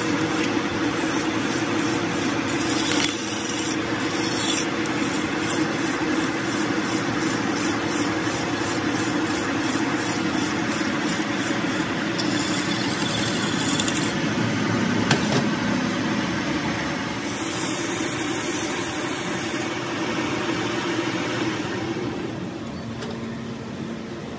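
Metal lathe running while a hand file is worked against the spinning steel truck drop spindle, a steady rasping over the lathe's hum. The lathe runs down near the end.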